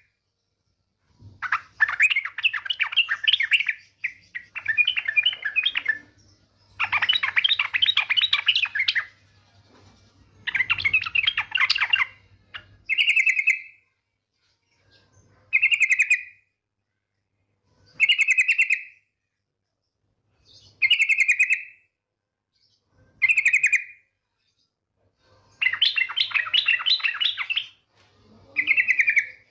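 Yellow-vented bulbul (trucukan) giving its rapid chattering 'ngetir' trill, a female's call to a male, in about eleven bursts of one to three seconds each with short pauses between.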